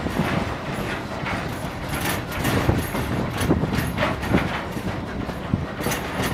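Vintage railway carriage rolling slowly along the rails, with a steady rumble and irregular clanks and knocks from the wheels and couplings.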